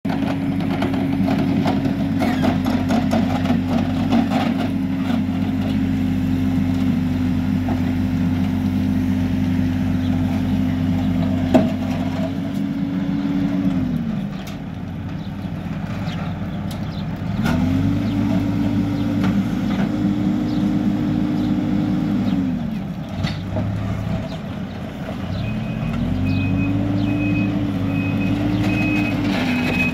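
Hidromek backhoe loader's diesel engine working the backhoe, held at high revs while digging and dropping back toward idle twice before revving up again. Near the end an intermittent high reversing alarm beeps.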